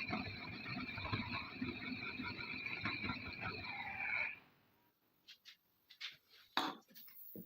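Small power tool whirring as it grinds or polishes, with a steady high whine over a rough grinding noise; it stops abruptly about four seconds in. A few light clicks and taps follow.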